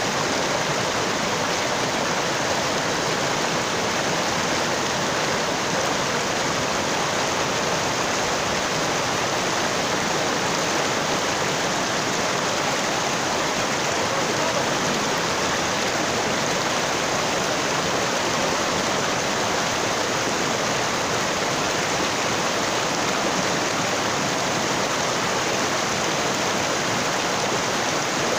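Mountain stream rushing steadily over and between granite boulders, a constant even roar of rapids.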